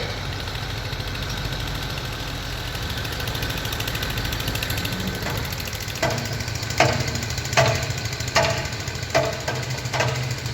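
Heavy construction machinery engine running steadily with a low hum. From about halfway through, a regular series of ringing strikes comes roughly every 0.8 seconds, six in all.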